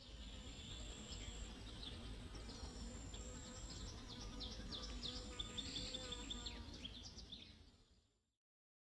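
Faint countryside ambience: small birds chirping in many short, quick calls over a high, steady insect buzz that comes and goes, with a low rumble beneath. It fades out near the end.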